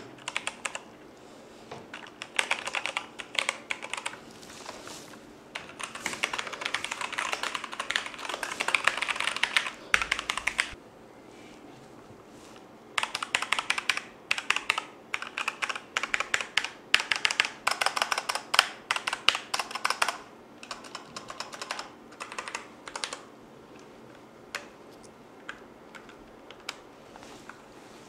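Cosmic Byte CB-GK-11 mechanical keyboard with brown switches being typed on in fast bursts of key clacks with short pauses between them. The clacking thins out and stops a few seconds before the end.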